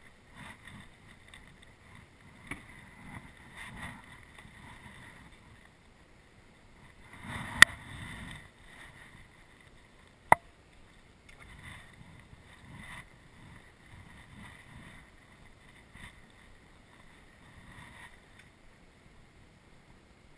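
Faint handling and water sounds around a small fishing boat: soft rustles and light knocks. Two sharp clicks, one past a third of the way in and one about halfway, are the loudest sounds.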